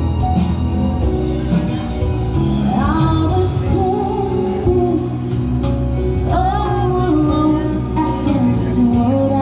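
Loud music with a woman singing over a steady bass line.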